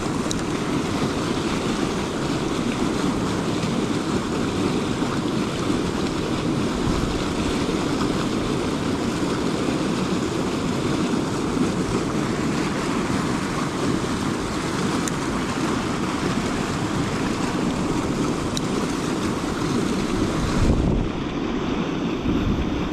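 River water flowing steadily over rocks, a constant rushing hiss. Near the end the higher part of the hiss drops away.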